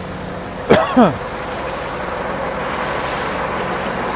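Engine running steadily with an even hiss, a little louder after about two and a half seconds; a short falling vocal sound, like a sigh or hum, about a second in.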